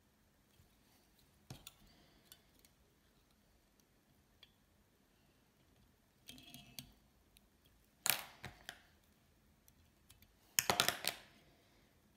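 Small handling sounds of fly-tying at a vise: scattered soft clicks and rustles of thread and a whip-finish tool, with a sharper click about two-thirds in and a louder brief cluster near the end.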